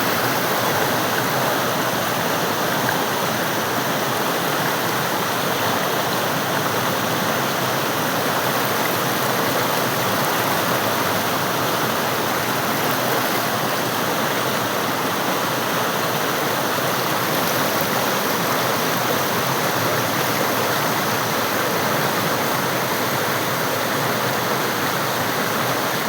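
Mandakini river water rushing steadily.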